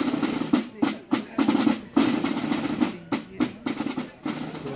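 A youth scout and guide band playing, with rapid snare drum strokes and rolls over clarinets, saxophones and brass.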